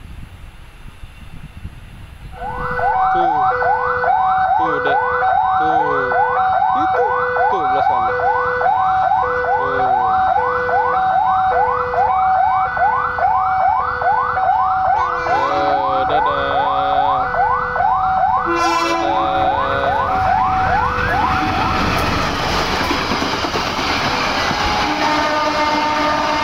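Railway level crossing warning alarm sounding: a repeating electronic signal of rising whoops, about two a second, over an alternating two-note tone. Near the middle, two short horn blasts come from the approaching train. From about 22 s the alarm gives way to the rumble and rattle of a locomotive-hauled passenger train passing close by.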